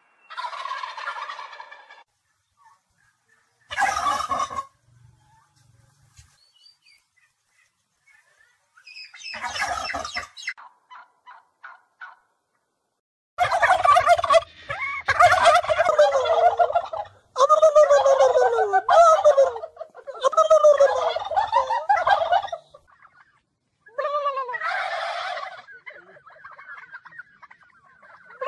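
Turkeys gobbling in repeated bursts of fast, falling, quavering calls. A few scattered calls come in the first half, then a close run of loud gobbles from about halfway to near the end.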